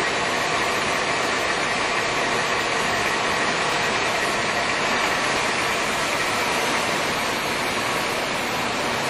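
Leblond Servo Shift engine lathe running with the spindle turning: a steady mechanical whir from its geared headstock and drive, holding an even level throughout.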